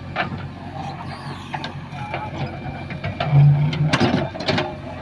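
JCB 3DX backhoe loader's diesel engine running steadily while the machine digs. Scattered metallic clanks and knocks come from the working arm and bucket, with a brief louder low drone just past three seconds and the sharpest knocks about four seconds in.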